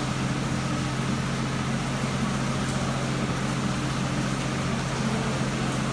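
Steady hiss of heavy rain and wind from a landfalling hurricane, with a steady low hum running underneath.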